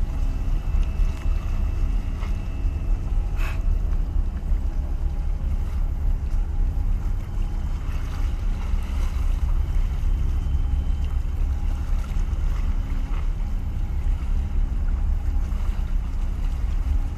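Steady low rumble and hum of a large container ship's engines as it steams out of the harbour, mixed with wind on the microphone. A single short click about three and a half seconds in.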